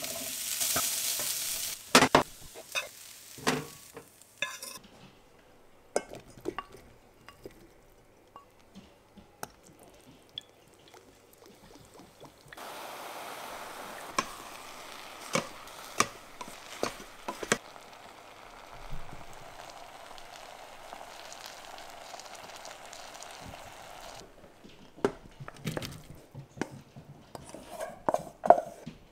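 Ground beef tipped from a bowl into a hot nonstick pan of stir-fry vegetables, sizzling loudly at first. Then scattered clinks and scrapes of a utensil against the pan, bowl and rice cooker pot as the food is stirred and moved, with a steady frying hiss through the middle.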